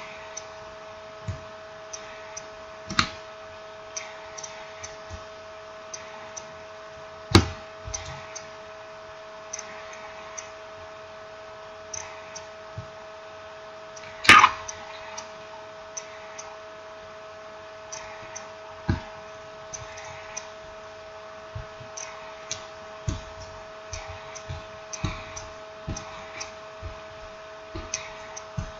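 Small irregular clicks and taps of handling a smartphone's parts and tools during reassembly, with a few louder knocks, the loudest about halfway through, over a steady two-tone hum.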